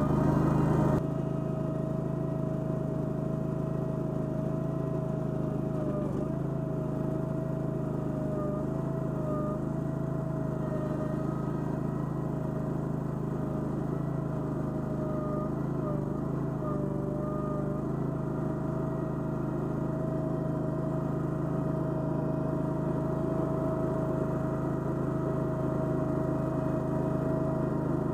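Toro Dingo mini skid steer running steadily, with a whine that wobbles slightly in pitch now and then. Its loudness steps down a little about a second in.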